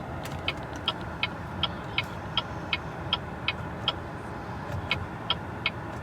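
Turn-signal indicator ticking steadily, about 2.7 ticks a second, over a low, steady hum from the car.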